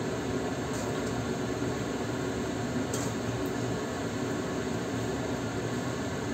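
Water spinach stir-frying in a wok: a steady hiss as the greens are tossed with a spatula, with a few light clicks of the spatula against the pan.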